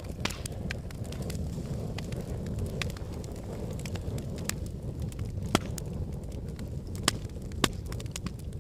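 Fire crackling in a fireplace: a steady low rumble of flames with scattered sharp pops, three louder pops in the second half.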